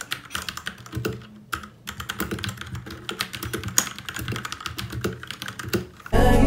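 Typing on an RK61 mechanical keyboard with red linear switches: a quick, irregular run of keystroke clacks. Background music comes back in near the end.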